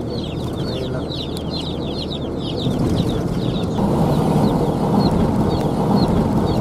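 Road and engine noise from inside a moving vehicle on a highway, growing louder about halfway through. Over it runs a fast series of short, high chirps, several a second, that thins out about halfway.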